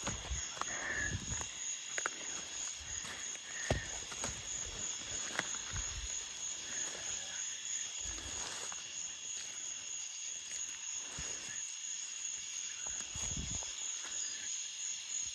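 Steady high-pitched insect chorus, with scattered soft knocks and rustles.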